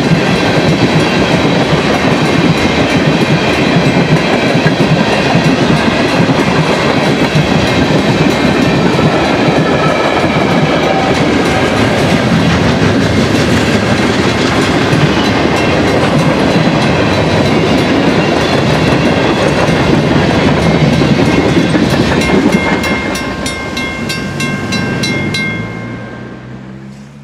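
Freight train's tank cars and flatcars rolling through a grade crossing, steel wheels clattering on the rails, with the crossing bell ringing. About 22 seconds in the train noise drops away as the last cars pass, leaving the bell's evenly spaced strikes before the sound fades out near the end.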